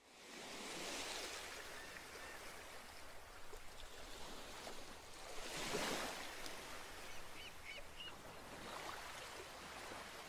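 Faint, soft rushing noise that swells about a second in and again at about six seconds, with a few faint high chirps a little past seven seconds.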